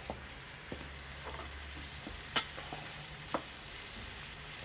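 Potato strips and diced bacon frying in a skillet, a steady sizzle, with a few light clicks as the pan is stirred, the sharpest about halfway through.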